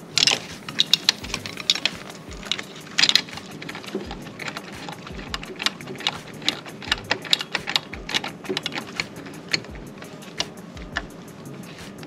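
Socket ratchet clicking in short, irregular runs as a screw-type hose clamp on the throttle-body intake hose is tightened.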